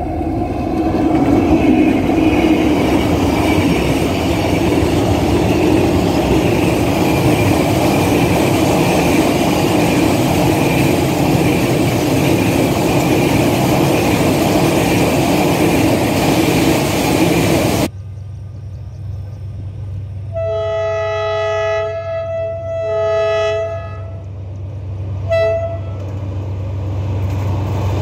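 A train passing close by with loud, steady rumble and wheel noise on the rails, which cuts off abruptly about 18 seconds in. After the cut a lower rumble continues and a two-tone train horn gives two long blasts, then a short toot a couple of seconds later.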